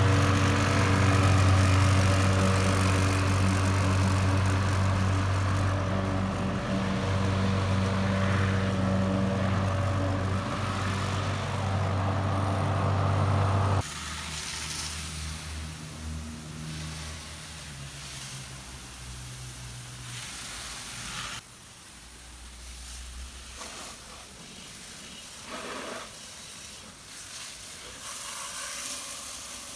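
Gas-powered walk-behind lawn mower engine running steadily while mowing. About halfway through it gives way to the quieter hiss of a garden hose nozzle spraying water onto the mower.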